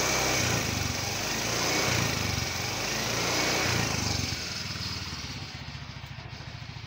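Yamaha Mio 125 scooter's single-cylinder engine revved with a few throttle blips, then dropping back to a steady idle about four seconds in. It runs smoothly on a newly replaced cam chain tensioner.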